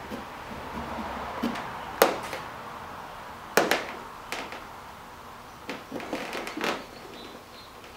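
Hands handling and marking loose cedar strips on a canoe hull: a scatter of short wooden clicks and knocks, the loudest about two seconds in and another about three and a half seconds in, with lighter taps later.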